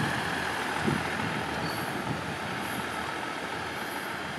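Two-car diesel railcar running on its engine as it pulls away, the sound easing slowly as it recedes.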